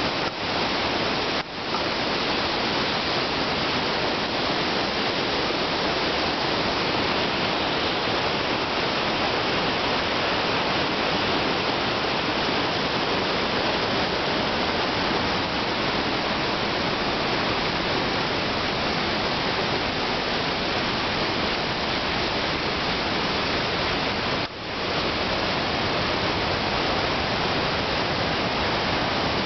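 Rapids of the Niagara River just above Niagara Falls rushing in a steady, even roar, dipping briefly twice, once near the start and once near the end.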